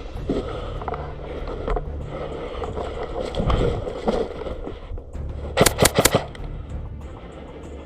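Airsoft gun firing a quick burst of about five shots, a little under six seconds in, over steady background noise and a few scattered knocks.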